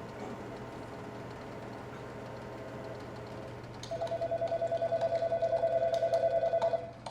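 Office room tone with a steady low hum. An electronic desk telephone rings with a rapid warbling two-tone trill, faint at first, then much louder from about four seconds in for about three seconds. Scattered light clicks run under it.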